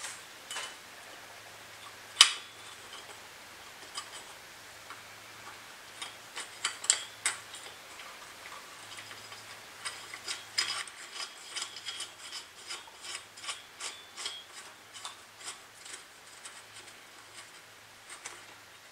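Small metal clutch parts clicking and scraping as washers and clutch shoes are fitted by hand onto the bolts of a Hangkai 3.6 hp outboard motor's clutch. One sharp click about two seconds in is the loudest, and from about ten seconds on comes a run of light clicks, two or three a second.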